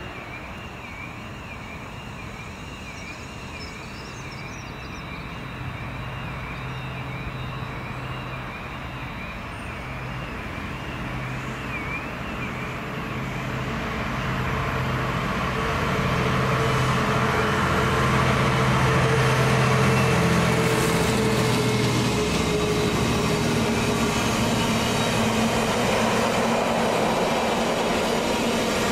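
Freightliner Class 66 diesel locomotive, with its EMD two-stroke V12 engine, hauling an intermodal container train. The engine note grows steadily louder as it approaches and passes close by, then gives way to the steady rumble of the container wagons' wheels rolling along the rails.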